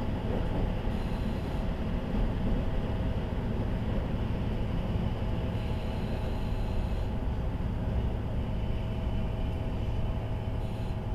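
KiHa 40 series diesel railcar (KiHa 40-587) running on the line: a steady low rumble of engine and wheels on rail, with a faint steady whine above it.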